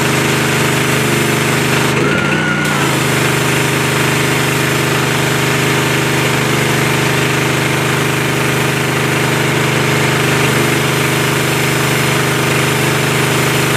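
Ryobi gas pressure washer's engine running steadily under load, with the hiss of the high-pressure jet striking concrete. The spray hiss drops out briefly about two seconds in.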